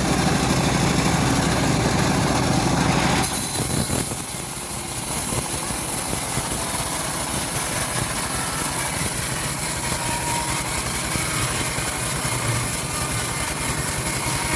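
Engine-driven homemade bandsaw sawmill running steadily, cutting teak. About three seconds in the sound changes: the low engine drone drops back and a high hiss rises, then holds steady.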